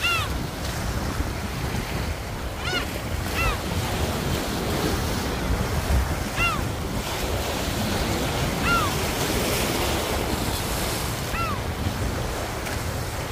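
Small waves washing in over a rocky, pebbly shore, with wind buffeting the microphone. A short high call that rises and falls sounds about six times across the stretch.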